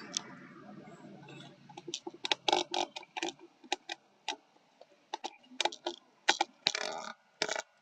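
A steady hiss fades out in the first two seconds, then comes an irregular series of sharp clicks and taps, a few close together, then short pauses.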